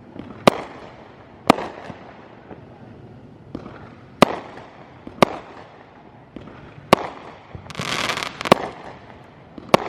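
Neighbourhood consumer fireworks going off: about seven sharp bangs, roughly one to two seconds apart, each with an echoing tail. There is a short rushing burst about eight seconds in.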